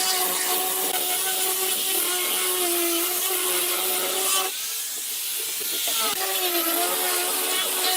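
Electric power tool running on wood with a steady motor whine over a hiss. It dips briefly about halfway through as the motor slows, then picks back up, its pitch wavering under load.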